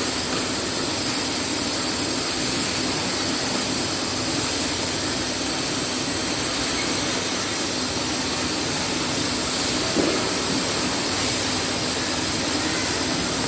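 Steady machine noise: an even hiss with a thin high whine, unchanging throughout.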